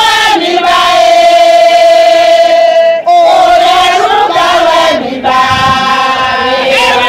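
A group of women singing a ceremonial chant together in unison, holding long notes. The singing breaks off briefly about three seconds in and dips again about five seconds in.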